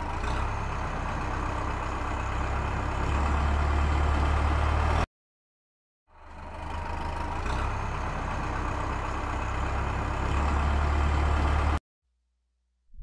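Steady low rumbling noise with a hiss over it, in two stretches of about five seconds. Each fades in, then cuts off abruptly.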